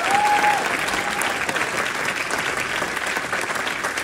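Audience applauding steadily: a dense patter of many hands clapping, with a voice calling out briefly at the start.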